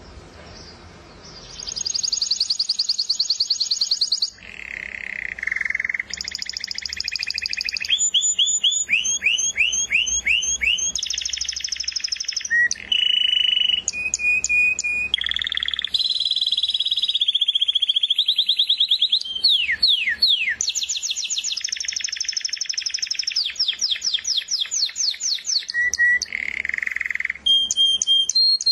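Canary singing a long, continuous song of rapid high trills and fast repeated notes, switching from one trill to the next every second or two, starting about a second in.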